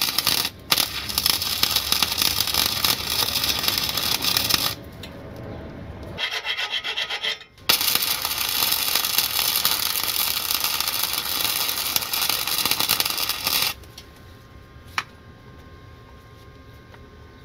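Titanium Flux 125 flux-core welder arc crackling while running overhead beads on a car's exhaust. One run lasts about five seconds, it breaks off and sputters briefly, then a second run of about six seconds stops abruptly around fourteen seconds in.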